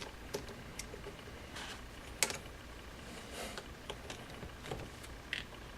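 Scattered light clicks and taps of small hand tools and plastic RC-truck parts being handled while the steering servo is being removed from the axle, with one sharper tap a little past two seconds in.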